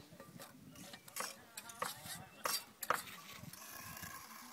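A handful of sharp clinks and knocks of hard objects against one another, irregularly spaced over a low background.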